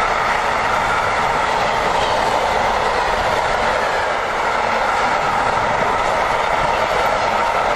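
A long freight train of covered bogie box wagons rolling past close by, with the steady loud noise of wheels running on the rails.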